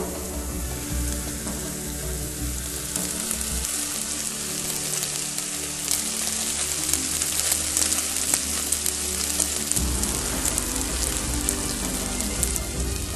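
Dense crackling and hissing, like flames or something sizzling, growing busier about three seconds in, over low background music.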